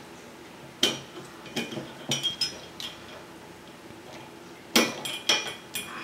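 Vise-grip pliers and copper wire clinking and ticking against the neck of a glass wine bottle as the wire wrap is squeezed tight. There is a sharp clink about a second in, a run of lighter clinks around two seconds, and another cluster of clinks near the end.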